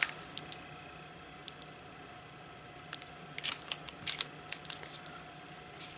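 Artist trading cards in clear plastic sleeves being handled: light crinkling of the plastic and small clicks as cards are picked up and set down, sparse at first, then a cluster of quick ticks from about three seconds in.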